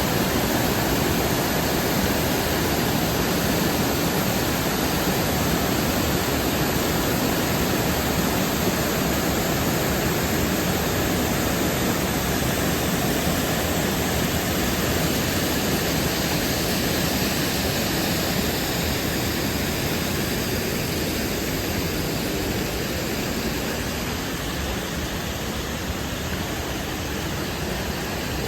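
Shokei-daru waterfall, one of the Kawazu Seven Falls, rushing with a steady roar of falling water that eases slightly in loudness over the last several seconds.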